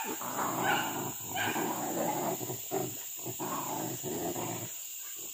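A pack of village dogs barking while hunting monkeys. A quick run of sharp barks comes in the first second and a half, then rougher, more ragged barking carries on.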